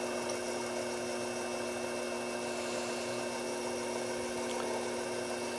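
Sherline vertical mill's spindle motor running steadily at high speed: an even hum with a faint high whine, as a small center drill is fed slowly and dry into aluminum.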